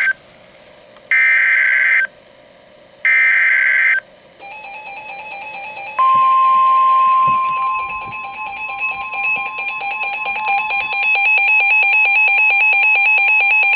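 Two one-second bursts of the screeching SAME digital header from a NOAA Weather Radio alert. A rapidly pulsing electronic alarm beep starts about four seconds in, and about six seconds in the steady 1050 Hz warning alarm tone joins it, sounding together with the beeping until near the end.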